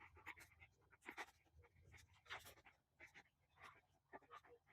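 Faint, irregular scratching and rustling of hands digging through potting soil in a tote to turn up potatoes.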